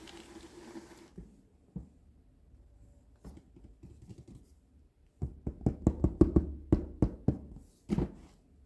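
Fingers tapping and knocking on a cardboard toy box. A short rustle of handling comes first, then a few scattered light taps, then a quick run of about a dozen knocks starting about five seconds in, with one last knock near the end.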